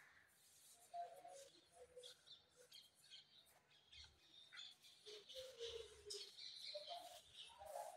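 Faint scratching of a pencil drawing on sketchbook paper, in short irregular strokes, with faint high chirps in the background.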